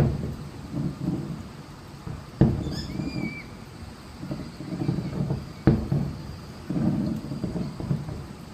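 Large aerial firework shells bursting, three sharp booms about three seconds apart, each trailing off in a low rumble and crackle.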